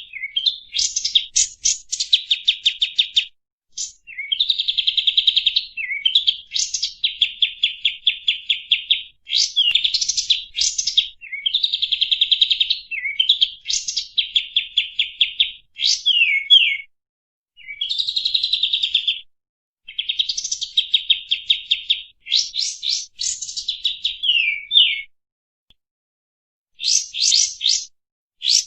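Kapas tembak (a bulbul) singing: repeated bursts of rapid, chattering high notes, each phrase a second or two long with short gaps between, and a longer pause near the end. This is the loud, busy song used as a lure recording to set other birds singing.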